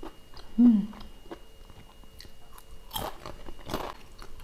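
Close-up mouth sounds of biting and chewing a crisp fried cracker, with many small crunching clicks. A short, loud hummed 'mm' comes about half a second in, and two louder sharp crunching sounds come near the end.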